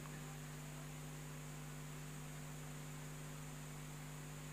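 Faint, steady electrical mains hum with a low hiss from the microphone and sound system.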